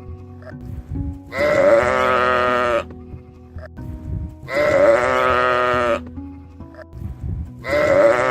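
Three long, wavering animal bleats, each lasting about a second and a half, with a short gap between them and soft background music underneath.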